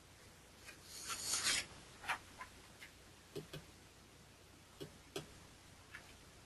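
Faint rustle about a second in, then a few soft, scattered clicks.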